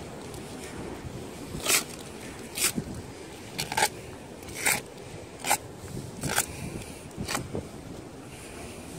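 A hand brush sweeping dead leaves off the path beside a granite grave kerb: about seven quick scraping strokes, roughly one a second.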